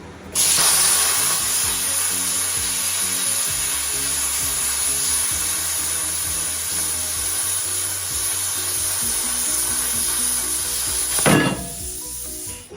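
Plasma cutter's arc cutting through half-inch steel plate: a loud, steady hiss with a high whine. It starts about half a second in, surges briefly near the end, then stops.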